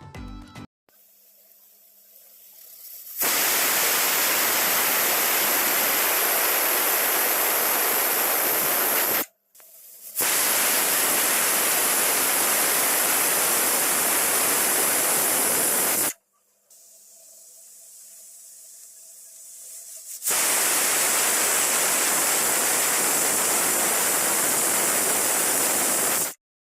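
Pressure cooker whistling as it vents steam from its valve: three loud, steady hisses of about six seconds each, each cutting off sharply. Each whistle is one of the counted whistles that time the cooking of the mutton, a sign that the cooker has reached full pressure.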